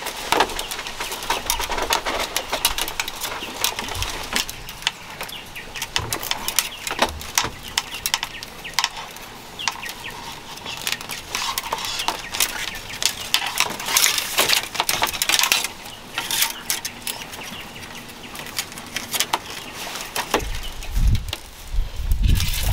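Thin split-bamboo strips rustling and clicking irregularly as they are woven by hand into a hat crown. A low rumble comes in near the end.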